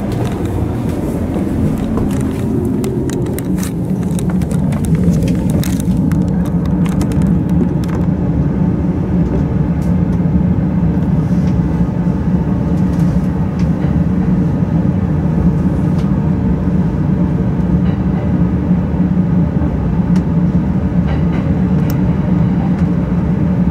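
Running noise heard inside an E231 series double-deck Green car as the train pulls away from a station: a steady rumble of wheels on rail, with scattered clicks and knocks in the first several seconds.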